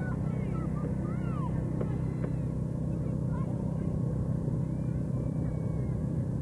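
Steady low hum on an old camcorder's soundtrack, with faint high calls that rise and fall now and then over it.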